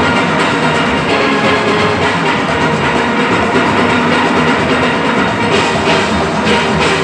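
A full steel orchestra playing live: many steelpans sounding together over a percussion rhythm, loud and continuous.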